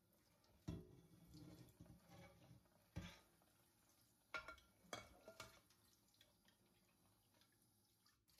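A thin, low-pressure stream of tap water running quietly onto a frying pan in a stainless steel sink, with a few light knocks and splashes as the pan is turned under it, the first about a second in and the rest between three and five and a half seconds.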